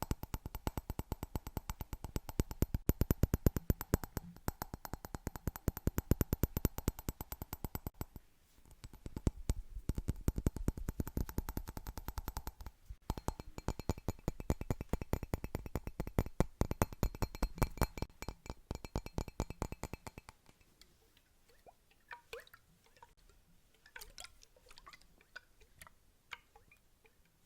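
Rapid, even tapping on a hard object for ASMR, about ten taps a second, with a faint ring from the object. About twenty seconds in it thins to scattered, softer taps.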